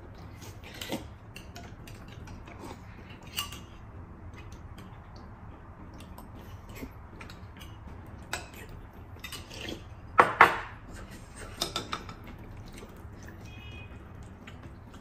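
Eating sounds: chopsticks and spoons clicking against ceramic noodle bowls, and noodles being slurped, heard close up. The loudest is a short slurp-like rush about ten seconds in.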